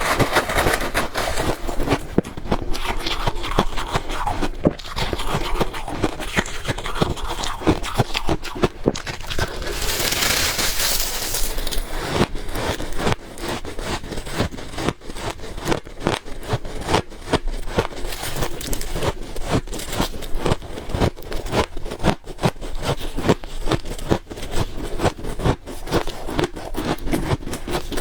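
Close-up crunching of freezer ice being bitten and chewed, a dense run of crisp, irregular cracks and crackles. About ten seconds in there is a brief louder, hissing scrape.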